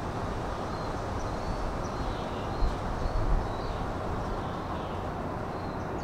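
Steady low rumble of a JR West 323-series electric train standing at a station platform. Small birds chirp briefly many times over it, and there are two soft thumps near the middle.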